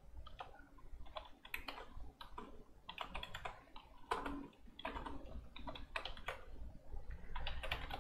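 Typing on a computer keyboard: irregular keystrokes, some in quick runs.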